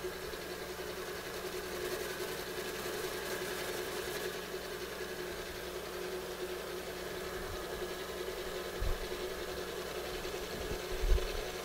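Milling machine spindle running steadily with a constant hum while it spins an edge finder to locate the workpiece's center. Two short low thumps come near the end, the second the louder.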